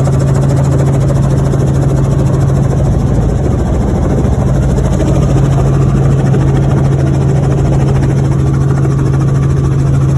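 Helicopter running: a loud, steady drone with a strong low hum that holds the same pitch throughout.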